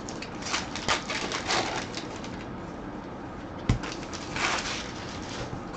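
Trading cards being handled: papery flicking and riffling as a stack of cards is thumbed through, in several short swishes, with a single knock about three and a half seconds in.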